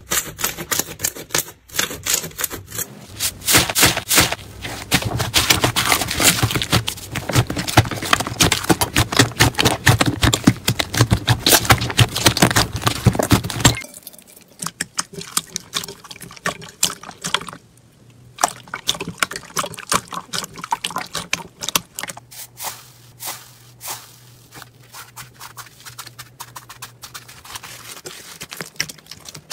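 Hands squishing and stretching slime: dense wet clicks and pops. The sound changes abruptly about halfway through to sparser, quieter clicking.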